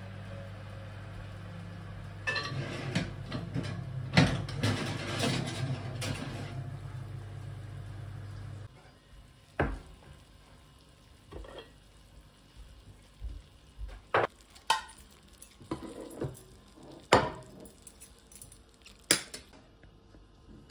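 Dishes and cutlery clattering: a burst of scraping and clinking, then single clinks every second or two. A steady low hum under it cuts off about nine seconds in.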